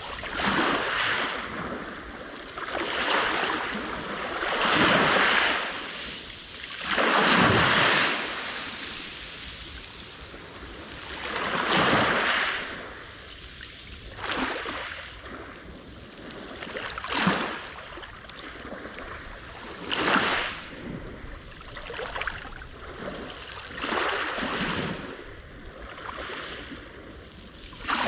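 Black Sea waves breaking on the shore: a rushing surge that swells and ebbs about every two to three seconds, with a short calmer lull partway through.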